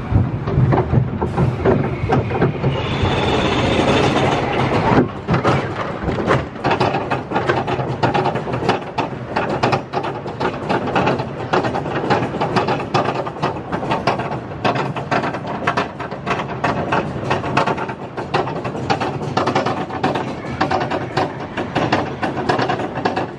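Mine-train roller coaster's train running on its steel track: a loud, steady, rapid clicking rattle, with a brief high-pitched tone a few seconds in.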